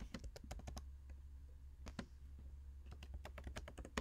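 Typing on a computer keyboard: a quick run of keystrokes at the start, a single key about two seconds in, and another run near the end finishing with a louder press, over a faint low hum.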